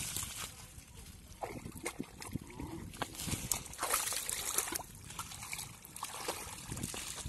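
Hands groping through wet mud and shallow water, making irregular squelches, small splashes and sloshes.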